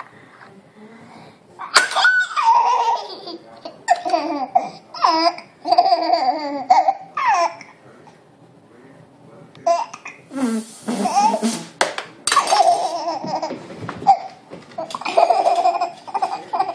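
Baby laughing in repeated bursts of giggles and belly laughs, with a short pause in the middle before the laughter starts again.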